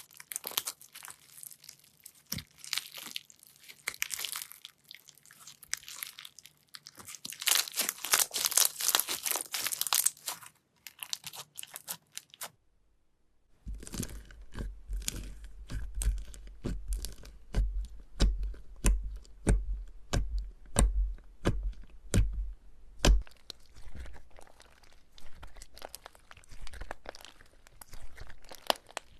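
Slime being squeezed and stretched by hand, making crunchy crackling and tearing sounds. After a brief silence about halfway through, a run of sharp pops and clicks follows over a low hum.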